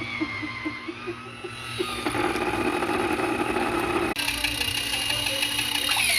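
Small electric motor of a mini USB washing machine running. About four seconds in it changes abruptly to a steady whine, which falls in pitch as the motor winds down at the end.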